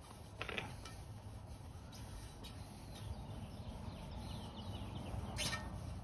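Cloth rag rubbing around the bead seat of a cast alloy scooter wheel rim, with two brief louder rubs, about half a second in and again near the end, over a steady low rumble.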